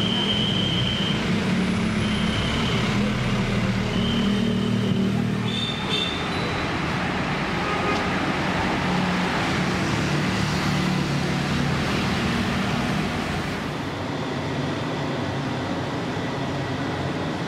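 A large bus's diesel engine running amid road-traffic noise, its note rising a little around the middle and easing off a few seconds before the end. Four short high beeps sound in the first six seconds.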